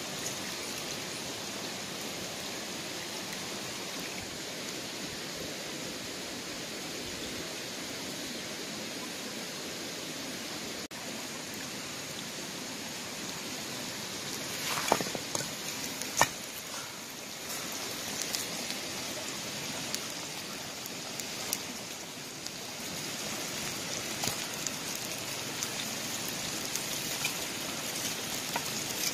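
Fish simmering in an open clay pot over a wood fire: a steady hiss, with a few sharp crackles or knocks from about halfway and smaller ticks after.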